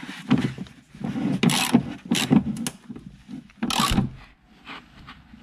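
A hand wrench working the rear shock absorber's upper mounting bolts tight, a series of short, irregular scraping and clicking strokes.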